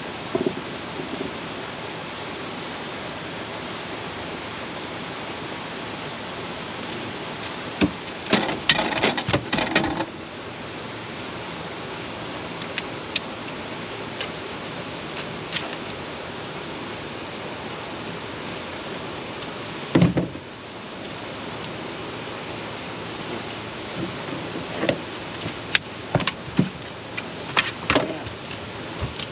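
Steady rush of river water, with bursts of clattering and knocking from gear being handled in a boat: a busy patch about eight to ten seconds in, one loud thump about twenty seconds in, and a run of sharp clicks near the end.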